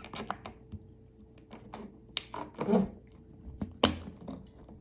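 Scattered clicks and taps of hands handling a plastic bottle and balloon, over a faint steady hum.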